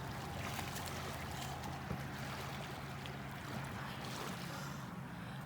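Steady outdoor background at the water's edge: a low, even hum under a faint hiss, with no distinct events.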